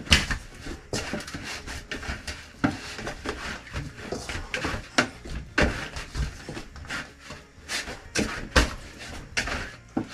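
Chapati dough being kneaded by hand in a stainless steel bowl: irregular thuds as the dough is pressed and turned against the bowl, with rubbing in between.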